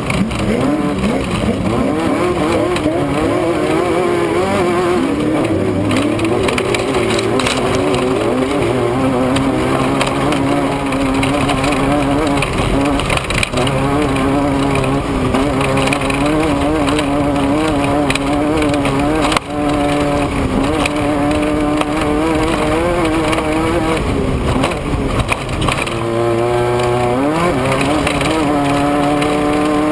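Off-road race vehicle's engine running hard, its pitch rising and falling with the throttle over a steady rushing noise. Near the end it revs up sharply.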